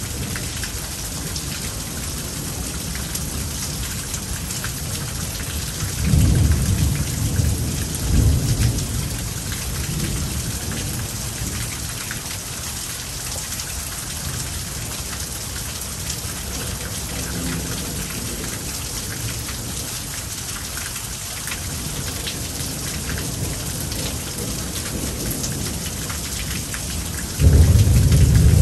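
Thunderstorm: rain falling steadily, with two rumbles of thunder about six and eight seconds in, then a loud thunderclap that breaks in suddenly near the end and keeps rumbling.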